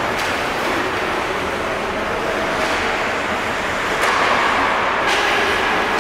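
Ice hockey play on a rink: a steady rush of skating and rink noise, with two sharp knocks about four and five seconds in.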